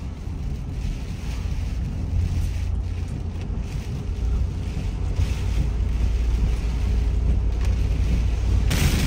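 Car driving on a wet road in heavy rain and wind, heard from inside the cabin: a steady low rumble of road and wind noise that slowly grows louder, with a sudden brighter hiss coming in near the end.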